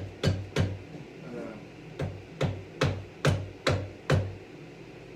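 Drill press chuck being tapped onto its spindle taper with a series of blows, about two to three a second: three at the start, a pause of about a second and a half, then six more.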